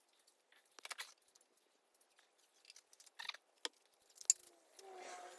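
Small clicks and rattles of parts and tools being handled, with a louder click about four seconds in and a short scraping squeak near the end.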